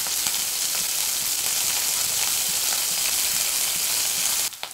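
Sliced onion, green chillies and curry leaves frying in hot oil in a non-stick kadai, giving a steady sizzle that cuts off suddenly near the end.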